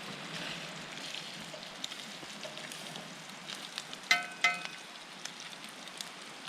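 Bacon sizzling and frying in a pan: a steady hiss, with two sharp metallic clinks about four seconds in.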